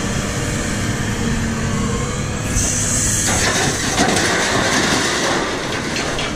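A scrap-yard crane working with its grapple as a load of scrap metal is dragged off a flatbed trailer, making steady grinding rumble and metal scraping. There is a brief hiss just before halfway, and more clattering and knocking of metal after that.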